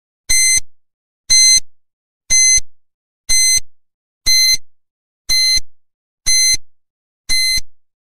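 Countdown-timer sound effect: a short, high-pitched electronic beep once a second, eight beeps in a row, ticking off the seconds of the countdown.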